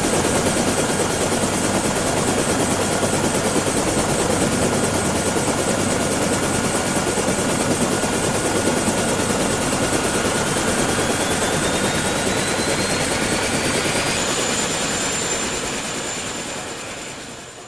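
MTZ-82 tractor's diesel engine running a PTO-driven potato haulm topper, its rotor spinning steadily after fresh bearings and greasing, with a faint rising whine partway through. The sound fades out near the end.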